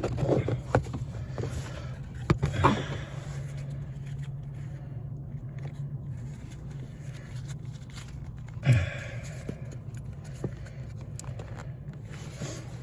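Clicks, knocks and scraping of hands working the main relay loose from its socket under a car's dashboard, with a sharper scrape near the end, over a steady low hum.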